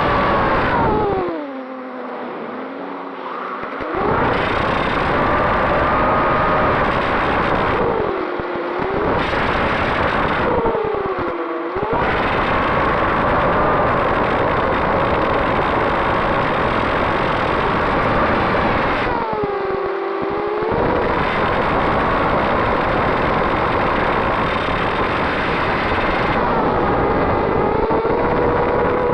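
FPV quadcopter's electric motors and propellers whining, the pitch holding steady, then dropping sharply and climbing back as the throttle is cut and reapplied, about four times, over a strong rush of air noise.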